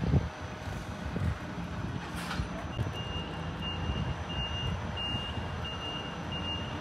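Reversing alarm of an articulated lorry backing its trailer into a parking space: an even beep repeating about every 0.7 seconds, starting about three seconds in, over the low steady rumble of the truck's engine. A brief knock sounds at the very start.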